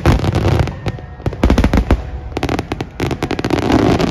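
Fireworks exploding in quick volleys of sharp bangs and crackles, four or five clusters in a row, with a rumbling swell near the end.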